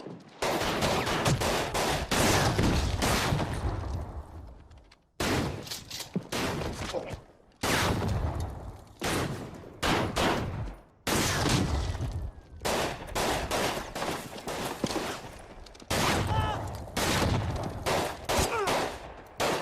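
Film shootout soundtrack: rapid volleys of pistol and shotgun fire with echoing tails. The volleys stop abruptly several times and start up again.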